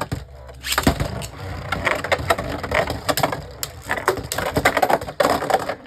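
Two Beyblade Burst spinning tops whirring and clashing in a plastic stadium: a continuous scraping rattle broken by many sharp plastic clacks, with louder bunches of hits about a second in, midway and near the end.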